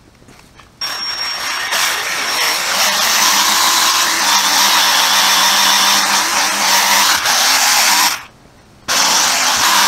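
Handheld 12-volt polishing tool running on motorcycle paint, buffing out scratches with a steady whirring and pad rubbing. It starts a little under a second in, stops for about half a second just after eight seconds, and starts again.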